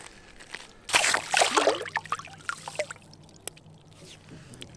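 A largemouth bass released into an ice-fishing hole: a splash about a second in, then water sloshing and dripping for a second or two.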